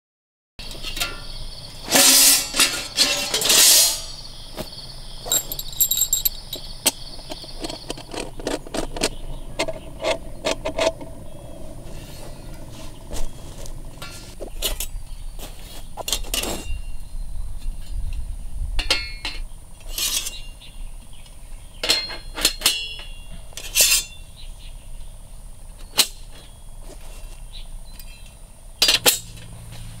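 Stainless steel panels of a stacking hexagonal fire pit clinking and clanking as they are handled and stacked together: a string of sharp metal knocks, loudest in a quick cluster a couple of seconds in.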